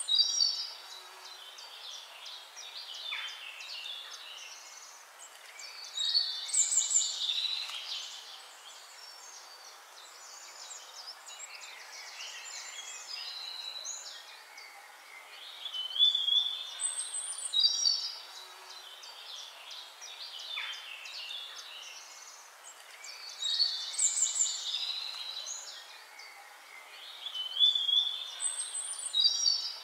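Birds singing: bursts of chirps and trills every several seconds over a faint, steady hiss.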